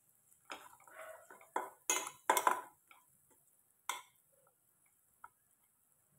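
Slotted metal spatula scraping and clanking against a stainless steel frying pan while stirring garlic and green chillies in butter. A quick run of scrapes and knocks comes in the first three seconds, with one more clank about four seconds in.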